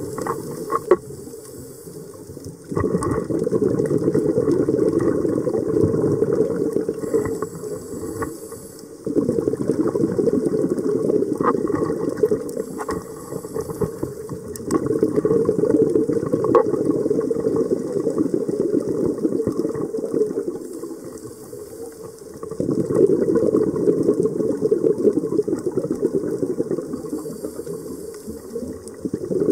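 A scuba diver's exhaled bubbles rushing and crackling out of the regulator, recorded underwater. Four surges, each starting abruptly and fading over a few seconds, with one breath out every six to eight seconds.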